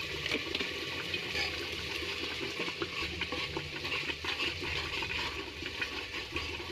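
Steel ladle stirring a thick masala gravy with peas in an aluminium pressure-cooker pot: a steady wet, bubbly churning with many small clicks and scrapes of the ladle against the pot.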